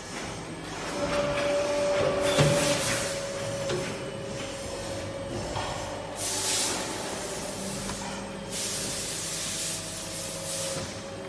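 Compressed-air blow gun hissing in three bursts as the mould of a melamine tableware compression press is blown clean, over a steady machine hum.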